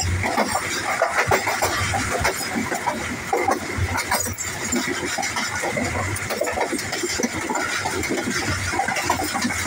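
Rear coach of a passenger train running along the track: wheels clattering on the rails, with continuous rattling, knocks and low thumps from the coach.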